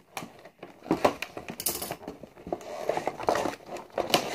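Cardboard and plastic packaging of a Monster High doll box being handled and pulled at while being worked open, with irregular crinkling, rustling and small clicks.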